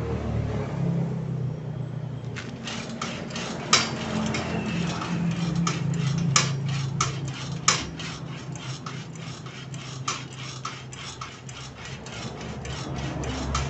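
Steel linkage of a homemade rice transplanter worked by hand: quick metal clicks and light knocks, roughly three a second, as the planting arm drives the lever that shifts the seedling tray side to side, starting about two seconds in, with a few louder clanks in the first half. A steady low hum runs underneath.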